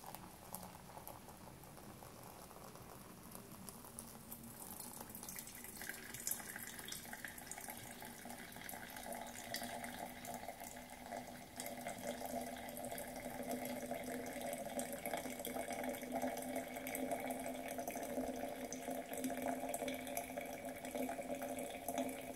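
Hot water poured in a steady stream from a metal kettle onto ground coffee in a paper filter, for pour-over coffee. The pour grows slowly louder as the filter fills.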